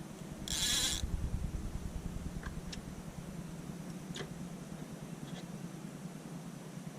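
Electric trolling motor running steadily with a low hum, pushing the boat slowly upstream. A brief hiss comes about half a second in, and a few faint clicks follow.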